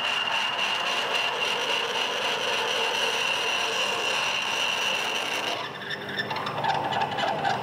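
A 1 3/8-inch twist drill cutting into a spinning durabar cast iron blank in a LeBlond 12-inch Heavy Duty lathe: a steady high whine over a scratchy cutting noise. About five and a half seconds in the whine stops and the cutting turns rougher and lower, with scattered ticks.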